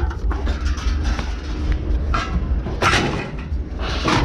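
Steady low rumble of an idling vehicle engine, with a couple of brief knocks or clatters about two and three seconds in.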